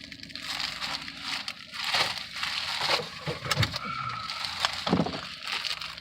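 Packaging crinkling and rustling as it is handled, with irregular small crackles and a few sharper crinkles.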